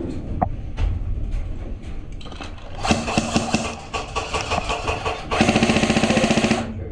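Airsoft electric rifle firing on full auto at close range: a short burst about three seconds in, then a longer, very fast burst of a little over a second near the end.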